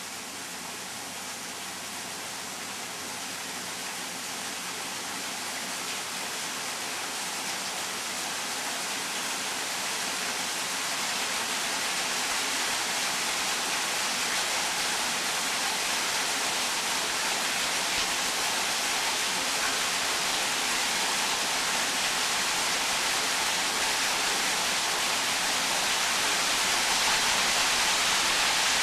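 Waterfall: a steady rush of falling water, growing gradually louder.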